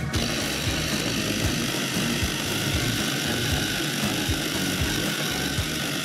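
Electric mini chopper switched on and running steadily, its blade whirring through a thick paste of basil, garlic, olive oil and pistachios being blended into pesto.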